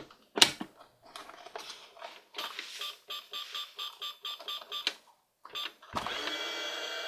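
Toy microwave being switched on: a click, then quick high beeps or ticks about four a second for a couple of seconds, and about six seconds in a steady electronic sound of several held tones starts suddenly.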